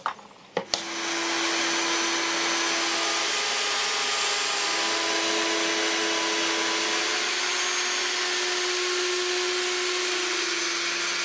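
Wood router on a pantograph jig, starting about a second in and then running steadily while it cuts a marine-plywood watch strap piece: a steady high hiss with a faint whine.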